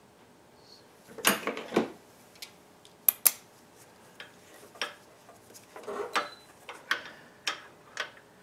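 Irregular metallic clinks and clanks of a hand tool and bolt against engine-bay metal, with two quick, sharp strikes about three seconds in.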